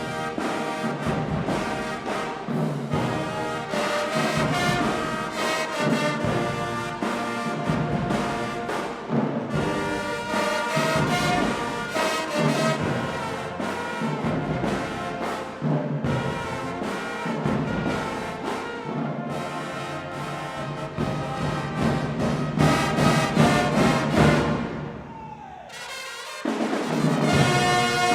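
Marching band playing: a loud brass section of trumpets and trombones over a steady drum beat. About 25 seconds in, the music drops away briefly before the full band comes back in.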